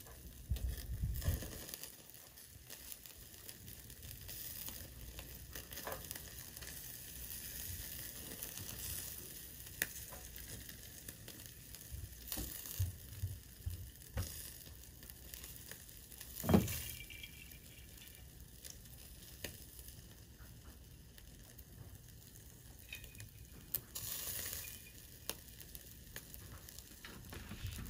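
Meat and green peppers sizzling on the wire grate of a small tabletop BBQ stove, a steady crackling hiss with scattered pops. A single sharp knock about two-thirds of the way through is the loudest sound.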